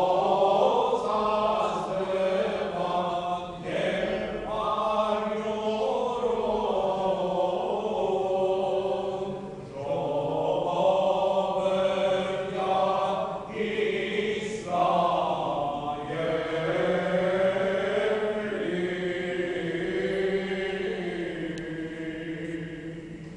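Armenian church choir chanting a hymn in long melodic phrases over a steady held low note, dying away at the end.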